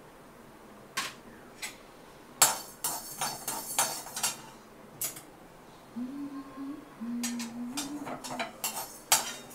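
A metal slotted spatula scraping and clinking in a steel kadai as urad dal is dry-roasted, in uneven strokes that are densest a few seconds in. From about six seconds a low humming tone that steps up and down in pitch joins in.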